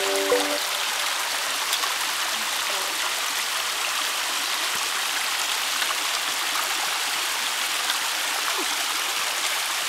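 Steady rush of a stream running over rocks, an even hiss with no change.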